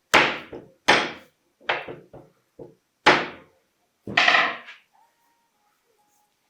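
A series of five sharp knocks, each ringing off briefly; the last comes as a quick cluster of strikes.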